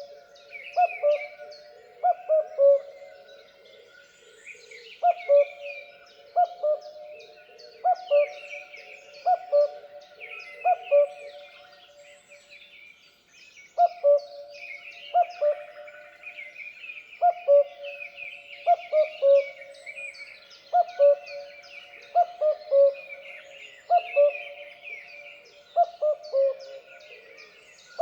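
Cuckoo giving its two-note "cuck-oo" call, the second note lower than the first, repeated about every second and a half in runs with short pauses. Other small birds chirp and twitter continuously at a higher pitch.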